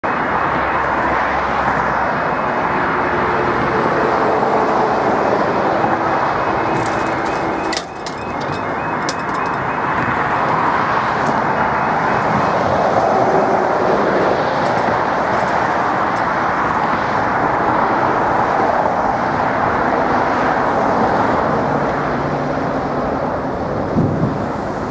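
Steady road traffic noise from a busy dual carriageway, with the level crossing's fast-pulsing warning alarms only just audible beneath it. A brief knock sounds near the end.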